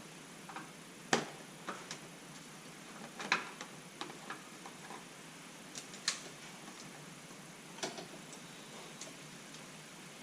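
Scattered sharp plastic clicks and light knocks, about half a dozen spread irregularly, as Christmas-tree trim fasteners are pried out of a pickup's plastic shroud and the parts are handled.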